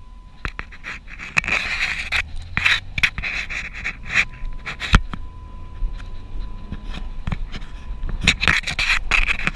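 Dog panting close to the microphone in two spells with a pause between, and a sharp knock about five seconds in.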